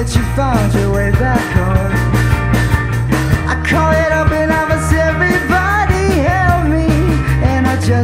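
Live rock band playing: electric guitars, bass guitar and drum kit, with a lead melody that bends in pitch over a steady drum beat and bass.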